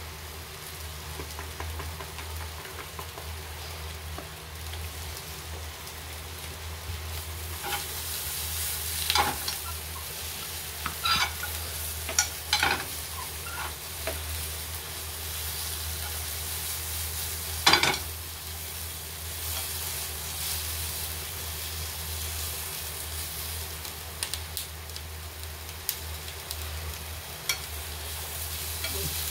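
Food sizzling steadily in a frying pan over a low hum, with a few short knocks and scrapes of a utensil against the pan, the loudest about eighteen seconds in.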